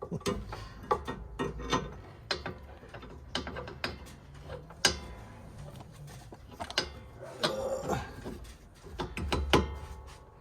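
Metal hand tools working the nut of a sway bar link ball joint: irregular sharp clicks and knocks with bursts of ratchet clicking, and a louder knock near the end.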